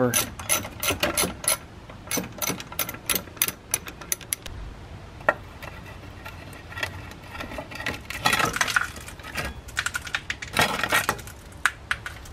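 Small steel bolts and washers clicking and clinking in the fingers as the dust cover's 8 mm bolts are taken out, a rapid run of ticks at first, then sparser. Later come two louder scraping stretches as the rusty sheet-metal dust cover is worked off the steering knuckle.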